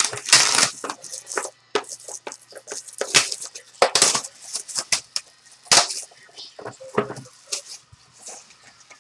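Clear plastic shrink wrap being torn and crumpled off a sealed trading-card box: irregular crinkling and crackling, loudest in the first second and again around the middle.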